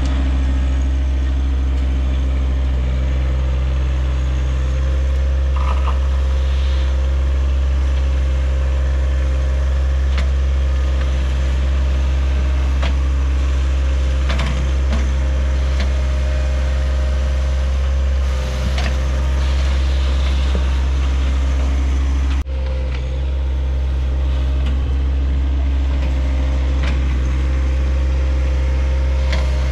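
John Deere 1023E sub-compact tractor's three-cylinder diesel engine running steadily at working speed, with a steady whine above the low engine note. The sound breaks off and dips briefly about 22 seconds in, then carries on the same.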